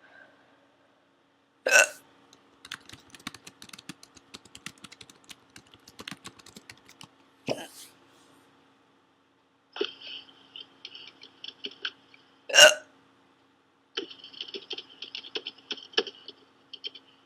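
A woman hiccuping three times, about two, seven and a half and twelve and a half seconds in; the first and last are the loudest. Quick light clicking, like typing on a computer keyboard, fills the gaps between the hiccups.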